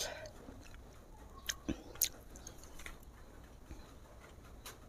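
A few faint short clicks over quiet room tone, the clearest about one and a half to two seconds in.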